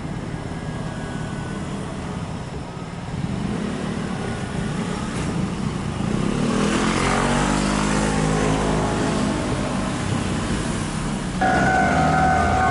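Low vehicle and rail rumble, with a passing vehicle whose pitch falls about six to ten seconds in. About eleven seconds in, a railway level crossing's warning bell starts ringing loudly in steady high tones.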